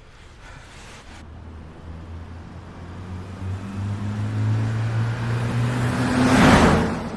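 A motor vehicle's engine hum builds as it approaches. It swells into a loud rush as it passes close about six and a half seconds in, then fades.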